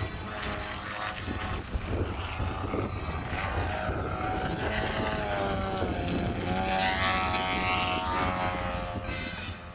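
Large-scale radio-controlled Extra 300 aerobatic model's DA-170 twin-cylinder two-stroke petrol engine and propeller running in flight. The engine note dips in pitch about six seconds in and then climbs again.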